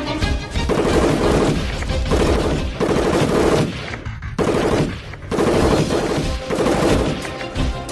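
Rapid automatic gunfire sound effects in repeated bursts, laid over background music, with a brief break about four seconds in.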